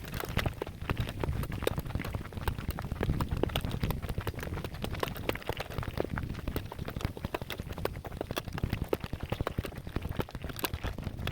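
Footsteps on a rough surface, a dense run of sharp, irregular clicks and crunches over a steady low rumble.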